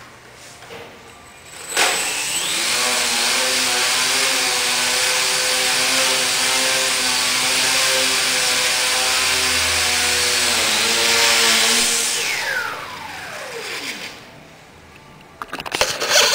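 Small 9 g brushless outrunner motor on a micro shock-flyer model plane, driving a 7x3.5 propeller while the plane hangs in a hover. It makes a steady buzzing whine with a rush of prop noise, starting suddenly about two seconds in and wavering slightly in pitch. It then winds down with a falling pitch as the throttle is cut. A few sharp knocks and clatter come near the end.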